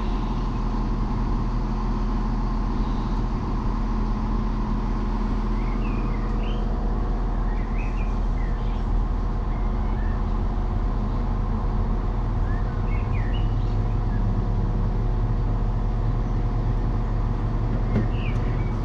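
East Midlands Railway diesel train idling steadily while it stands at the platform, with birds chirping a few times over it.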